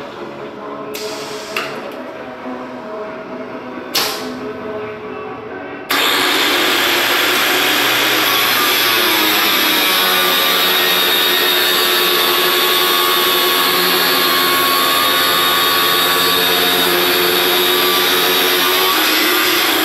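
Automated tube-cutting rig: a steady motor hum with a few sharp pneumatic clacks, then about six seconds in the angle grinder's abrasive cut-off disc bites into the metal tube with a loud, steady grinding that lasts until near the end.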